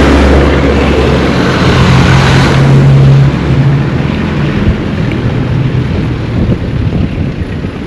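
A motor vehicle's engine running loud and close, its pitch stepping up about a second and a half in, then fading away after about three seconds, leaving wind and a rumble of distant traffic.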